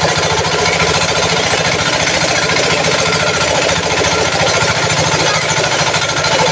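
Motor-driven abaca fiber stripping machine running with a fast, even pulse while a strip of abaca stalk is pulled through it to strip out the fiber.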